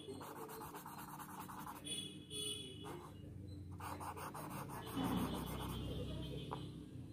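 A blending tool rubbing graphite shading on paper in quick back-and-forth strokes, in several runs with short pauses. A louder low rumble of handling about five seconds in.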